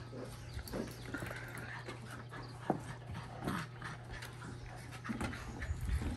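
Puppies panting and scuffling as they tug at a toy, with scattered light taps and clicks of paws on wooden deck boards.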